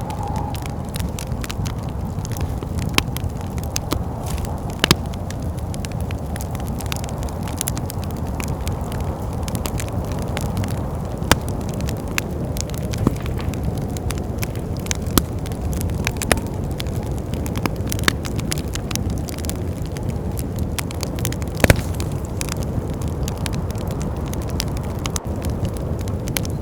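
Wood fire in a fireplace crackling steadily, with a few louder pops, over a steady low rumble of wind.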